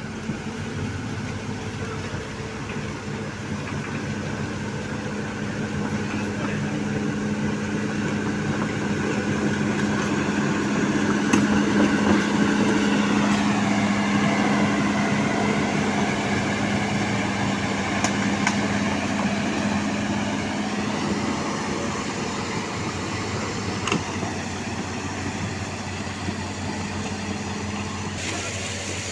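Heavy diesel engine running steadily, working harder to a peak about twelve seconds in and then easing back, with a few faint knocks.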